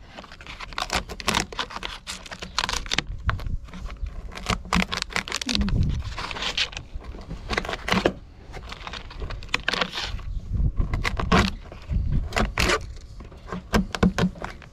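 Chisel and blade scraping and prying rotten plywood core out of a fiberglass boat cockpit, a busy run of irregular scrapes, cracks and clicks as the decayed wood breaks away.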